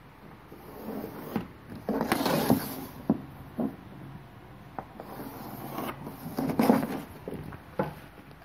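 Chalk scraping on a blackboard in drawn strokes, with a longer stretch about two seconds in and another about six and a half seconds in. Light knocks and taps come in between as a ruler and a drafting curve are set against the board.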